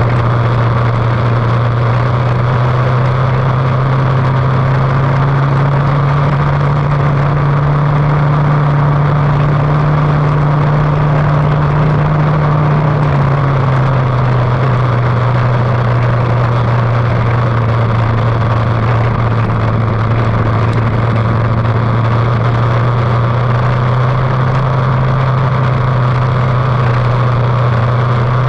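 Lightning sprint race car's 600cc motorcycle engine running loud and steady. Its pitch rises a little, then drops back about halfway through.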